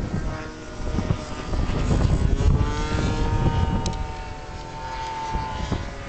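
Radio-controlled model plane's Super Tigre glow engine running in flight, its whine rising in pitch about two and a half seconds in and then holding steady. Strong wind rumbles on the microphone underneath.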